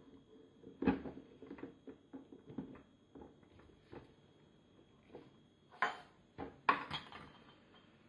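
Short metal clicks and knocks as the portafilter is seated and twisted into the group head of a Krups Virtuoso espresso machine. Near the end come two louder, sharper clinks as small glass cups are set on the metal drip tray. The machine is not pumping.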